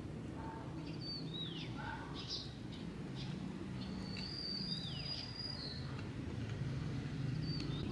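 Small birds chirping: a few short downward-sweeping calls and a brief high thin whistled note, over steady low background noise.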